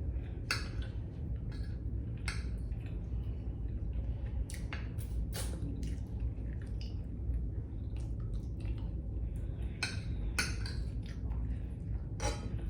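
Close-up eating sounds: irregular wet mouth and chewing noises and light clinks of tableware, over a steady low hum.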